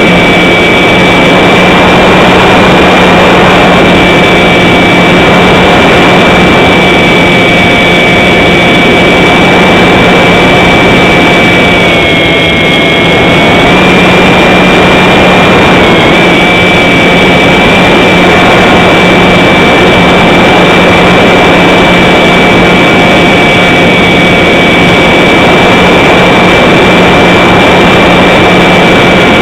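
Radio-controlled model aircraft's motor and propeller, heard through its onboard camera: a loud, steady whine over rushing wind noise. The pitch dips briefly about twelve seconds in and again around sixteen seconds.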